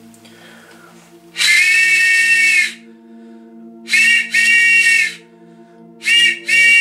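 Handmade ash-wood train whistle with four chambers of different depths, blown in blasts: one long, then a short and a long, then a short and a long near the end. Each blast is a steady chord of several close high tones mixed together, copying the whistle of an old steam train.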